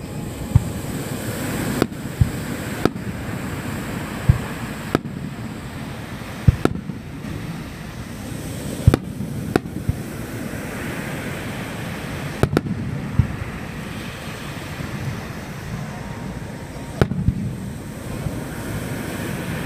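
Aerial firework shells bursting: about a dozen sharp booms at irregular intervals, some in quick pairs, over a steady rush of waves on the shore.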